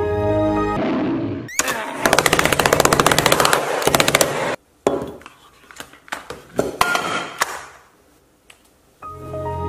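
A short computer startup chime. Then a laptop is smashed with a hammer: about three seconds of rapid hard impacts, about ten a second, followed by a few scattered knocks and cracks. Another chime begins near the end.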